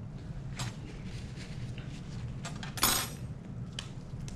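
Light clinks of a metal lab spatula against a glass test tube while aspirin powder is tipped in, then a louder short clatter just under three seconds in as the spatula is put down on the lab bench. A steady low hum sits underneath.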